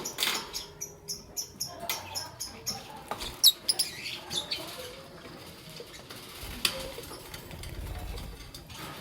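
Young peach-faced lovebird chirping in quick, short, high-pitched chirps, with a few sharp squeaks about three and a half seconds in, then quieter.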